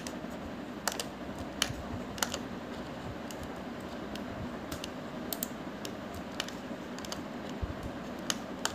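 Scattered clicks of a computer keyboard and mouse, about eight over a few seconds, irregularly spaced, over a steady low background hum.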